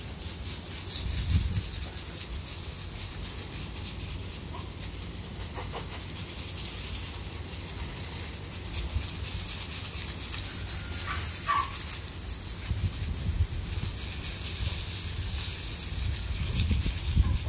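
Garden hose spray nozzle spraying water steadily onto a concrete kennel floor, a continuous hiss, rinsing the run, with a low rumble now and then.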